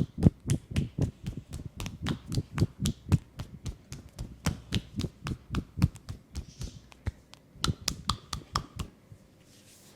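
Hands striking an oiled leg in quick percussive massage strokes, about four or five a second. There is a short pause about seven seconds in, and the strokes stop about a second before the end.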